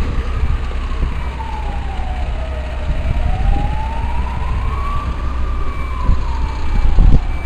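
Emergency vehicle siren in a slow wail, its pitch falling for about three seconds, rising again and then falling once more, over a steady low rumble.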